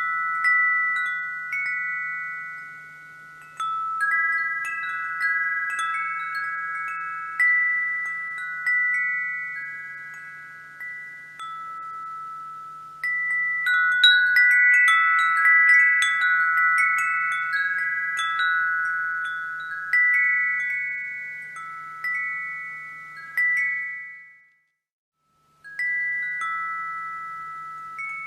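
Wind chimes ringing: several pitched chimes struck at irregular moments, their tones overlapping and slowly fading, with a busier flurry of strikes about halfway through. Near the end the sound cuts out completely for about a second, then the chimes resume.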